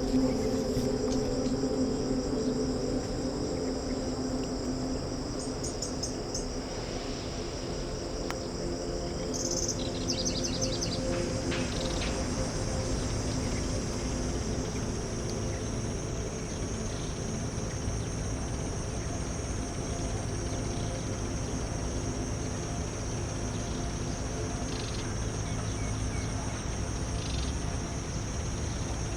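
Steady high-pitched insect chorus, with a few short rapid bird chirps about 6 and 10 seconds in.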